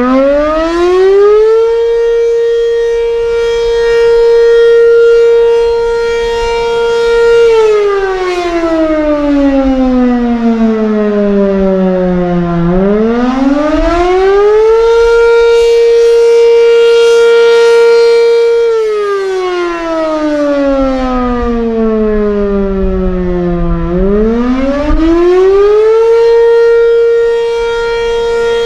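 B&N Mobil Directo BN52 tornado siren sounding a wavering wail, the Attack signal. It winds up to a high tone, holds it for about six seconds, then slides down slowly before winding back up again, about two and a half times over.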